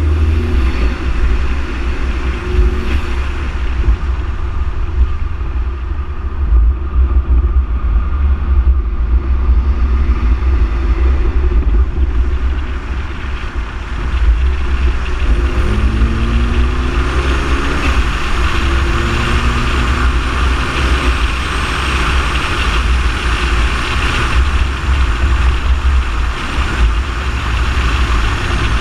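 Ford Focus ST driving at speed, heard from outside the car: heavy wind buffeting on the microphone and tyre noise throughout, with the engine note rising as the car accelerates about halfway through.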